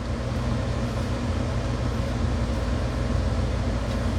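Window-unit air conditioner running steadily: a constant low hum with an even fan hiss over it.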